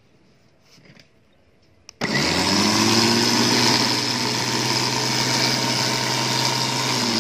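Electric winch motor of a Hi-Winch 9500 lb winch starting up suddenly about two seconds in and running steadily, a low hum with a high whine, as it pays out its steel wire rope from the drum.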